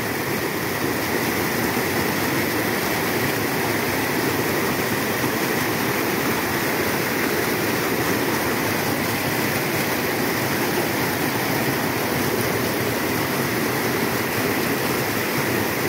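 Fast white water pouring steadily over and between rocks at the foot of a full reservoir's overflowing spillway.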